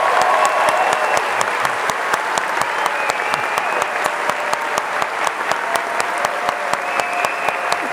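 Concert audience applauding at the end of a song: dense, steady clapping with single sharp claps standing out, and a few held cheers.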